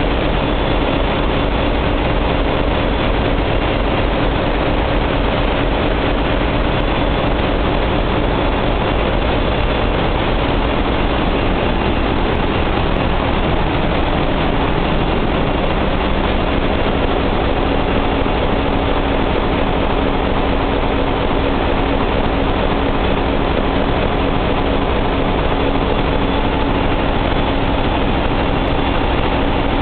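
Steady, loud drone of running marine diesel generator engines filling a ship's engine room. A constant hum tone sits over the machinery noise, unchanging throughout.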